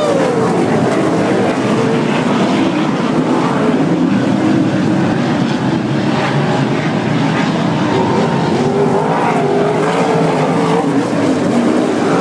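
A field of sprint car V8 engines racing around a dirt oval, a loud continuous drone whose pitch rises and falls as cars pass and change speed.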